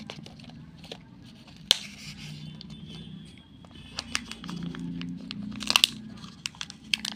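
Plastic and foil crackling, with scattered sharp clicks, as a Kinder Joy egg's plastic capsule is handled and its foil seal peeled off; a cluster of louder crackles comes past the middle.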